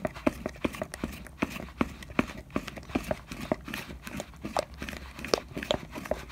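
Wooden spoon stirring a thick white slime mix of glue, bicarb and hand lotion in a bowl, tapping and knocking against the bowl in quick, irregular clicks, about two or three a second.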